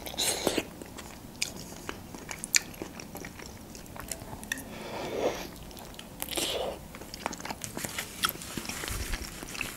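Close-up eating sounds: biting into and chewing a Georgian khinkali dumpling dipped in tomato sauce, with many small wet mouth clicks throughout.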